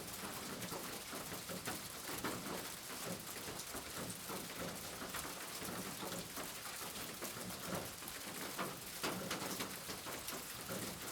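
Steady rain falling, with individual drops pattering close by on a surface.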